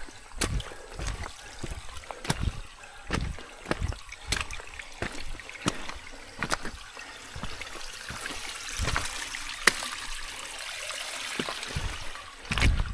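A shallow mountain stream trickling and running over rocks, with a hiker's footsteps in the water and on wet rock about once a second. The rush of the water grows louder past the middle.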